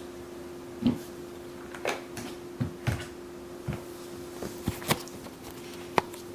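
Handling noise from small plastic objects: about eight light clicks and knocks at irregular intervals, the sharpest a little before the end, over a steady low electrical hum.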